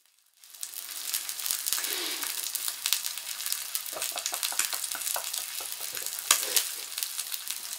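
A bone-in lamb chop sizzling on the hot grill plate of a tabletop gas stove: a steady hiss full of small crackles, starting about half a second in.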